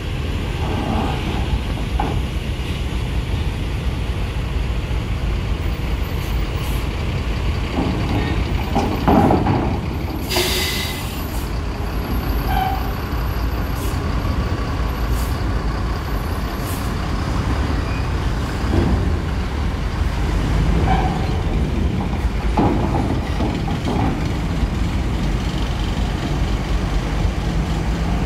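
Mercedes-Benz OH 1526 coach's diesel engine running as the bus drives slowly up a steel ferry ramp, with a few knocks and a sharp air-brake hiss about ten seconds in.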